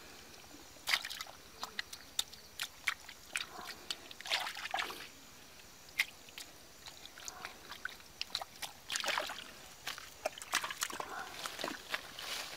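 Shallow muddy water splashing and sloshing in short, irregular bursts with sharp slaps, as a hand digs and scoops in wet mud.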